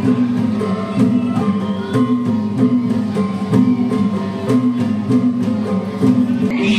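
Recorded dance music with a steady beat and a repeating plucked-string melody.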